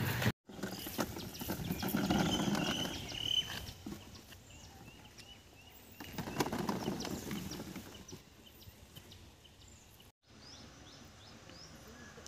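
Ripe tomatoes tumbling from a bucket into a plastic crate about six seconds in, over small birds chirping in the background. The sound cuts out for an instant twice.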